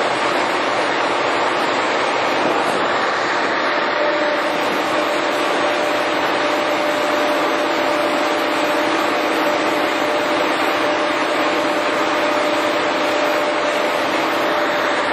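Giddings & Lewis 340T horizontal boring mill running under power, its 20 HP main drive turning the spindle: a loud, steady mechanical whir, with a steady whine coming in about four seconds in and holding.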